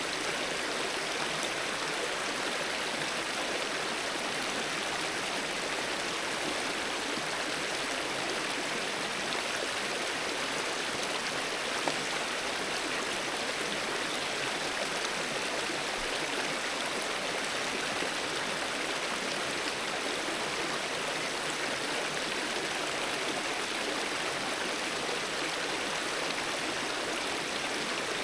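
Mountain river flowing steadily over rocks, a constant rushing and babbling of water.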